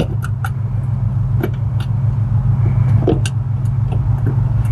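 Short metal clicks and clinks as bolts are pushed by hand through a seat swivel plate into a suspension's mounting brackets, over a steady low rumble.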